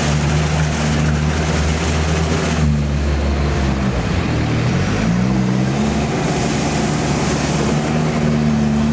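Sherp amphibious ATV's diesel engine running as it drives through tall marsh grass. Its revs dip about four seconds in and climb again, over a steady rushing noise.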